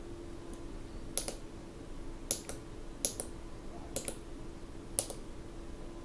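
Tactile push button on a breadboard pressed about five times, roughly once a second. Each press is a quick double click of press and release, stepping an Arduino menu's selected function forward. A faint steady hum runs underneath.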